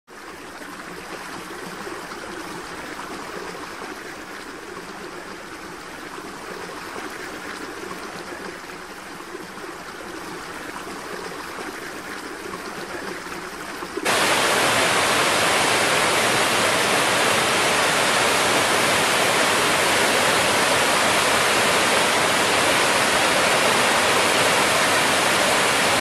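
Waterfall and rapids rushing steadily. About halfway through, the sound steps up suddenly to a louder, fuller rush.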